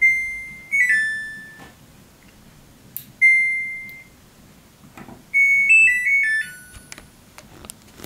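Samsung WW90K5410UX washing machine control panel beeping as the program selector dial is turned: clear electronic beeps that fade out, a few falling tones about a second in, another beep about three seconds in, and a short run of stepped tones between five and seven seconds in. A few light clicks come between the beeps.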